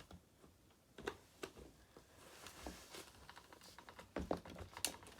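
Faint scattered clicks and knocks of plastic RC car parts being handled and pressed together while fitting a wheel assembly on a Traxxas Slash. There is a quick run of clicks a little after four seconds in.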